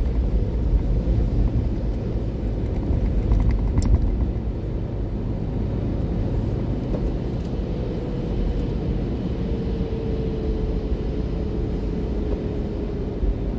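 Steady low rumble of a car driving, heard from inside the cabin: engine and tyre noise on the road. A faint whine that slowly drops in pitch appears about halfway through.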